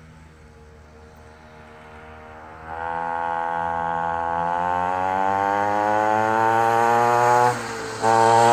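Mini dirt bike's small single-cylinder engine running as the bike rides closer, its pitch climbing steadily. It gets much louder about a third of the way in, dips for half a second near the end, then comes straight back.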